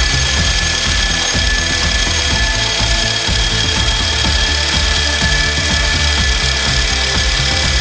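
Machine tool cutting metal: a steady whine over a rough, irregular rumble that runs on without a break.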